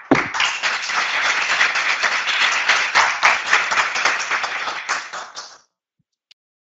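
Audience applauding, a dense patter of many hands clapping that cuts off suddenly about five and a half seconds in.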